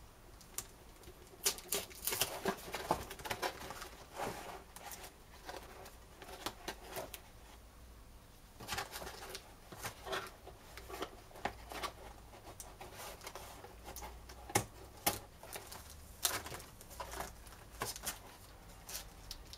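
Clear plastic bags of kit parts crinkling and rustling as they are handled, with small clicks and taps against a cardboard box. The crackling comes in irregular spells, busiest about two seconds in, around nine seconds and around fifteen to seventeen seconds.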